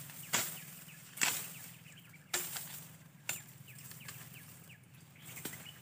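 A hooked machete chopping through a small branch: four sharp strikes about a second apart, then quieter.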